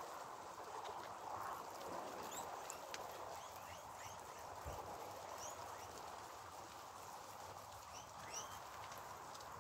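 A large herd of guinea pigs eating chopped vegetables: a steady patter of many small chewing crunches and rustles, with scattered short, high rising chirps.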